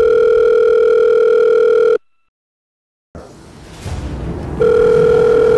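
Telephone ringback tone on an outgoing call: a steady tone sounds for about two seconds, stops, and sounds again near the end while the line rings at the other end, waiting for an answer.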